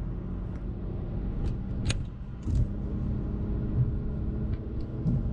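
BMW N52 inline-six, freshly rebuilt, pulling at wide-open throttle in a break-in run, heard from inside the car as its revs climb slowly. The engine note dips briefly about two seconds in, and a few faint clicks come through.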